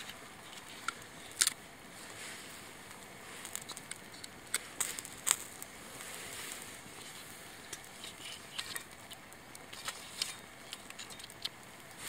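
Small wood fire crackling, with irregular sharp pops over a faint steady hiss; the loudest pops come about a second and a half in and about five seconds in.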